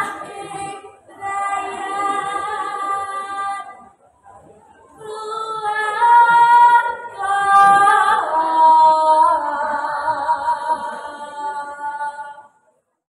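A girl singing a Javanese macapat verse solo and unaccompanied into a microphone, with long held notes that bend and waver in pitch. She sings two phrases with a short break about four seconds in, and the singing cuts off suddenly near the end.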